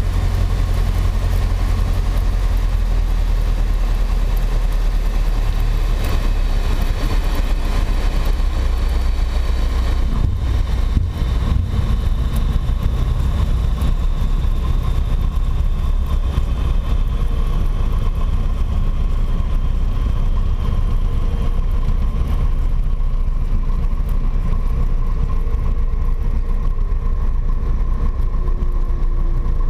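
Single-engine Piper PA-28-140 Cherokee's four-cylinder Lycoming O-320 engine running steadily, a deep, even drone heard from inside the cockpit.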